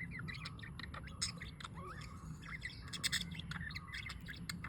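Pet lovebirds chattering, a dense run of rapid short squawks and chirps with a few sharper calls, over a steady low hum.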